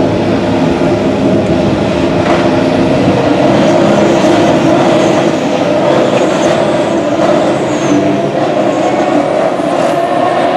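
2016 Formula 1 cars' 1.6-litre V6 turbo-hybrid engines running at high revs on track: a loud, steady engine note that holds almost the same pitch throughout.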